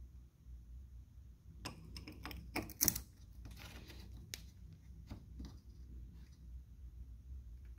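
Clicking and scraping of a metal radiator cap being handled at the plastic filler neck of a cold radiator: a quick run of sharp clicks about two seconds in, the loudest near three seconds, then a few lighter clicks.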